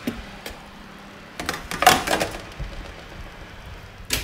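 Metal roasting tray being slid out of the oven and set down on the hob, with scraping and clattering that is loudest about two seconds in, and a short sharp knock near the end.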